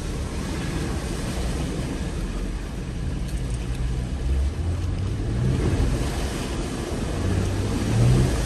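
Jeep engine and drivetrain running at low speed over an off-road trail with a steady low rumble. The engine note swells twice, about five seconds in and most loudly near the end.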